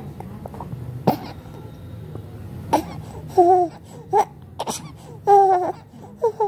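A young child with a cough coughing a few times in short, sharp bursts, with brief whimpering cries between the coughs.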